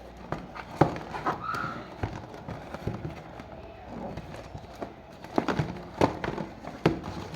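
Irregular sharp clicks and knocks of plastic packaging and action-figure parts being handled, with a cluster of them about two-thirds of the way through.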